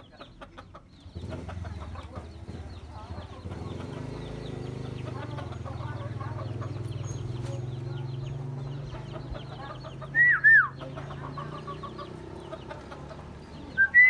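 Myna calling: a long run of low, hen-like clucking, then two loud, short whistles that slide down in pitch about ten seconds in, and another near the end.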